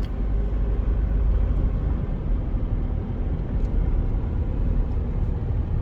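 Steady engine and road rumble of a car being driven, heard from inside the cabin.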